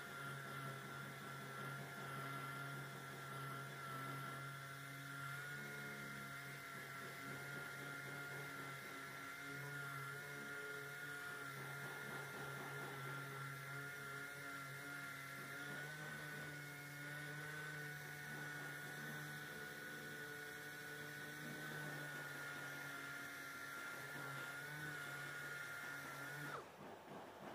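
Dust-extracting orbital sander running against body filler on a car panel: a steady high whine over a low hum, cutting off about a second before the end.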